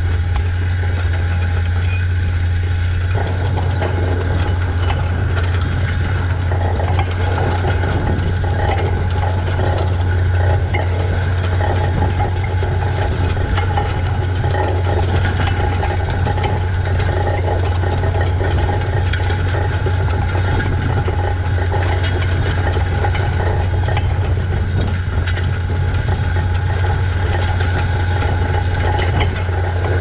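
Tractor engine towing an International Harvester disc plough under load, a steady low drone, with the plough's discs scraping and rattling as they cut through dry soil close by. The scraping and rattling grow busier from about three seconds in.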